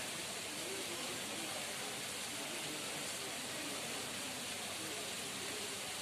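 Steady, even hiss of background noise that does not change in level, with faint indistinct low sounds under it.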